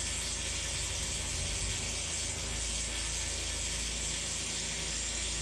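Electric arc welding on a steel I-beam: a steady, dense crackle, over a low steady rumble.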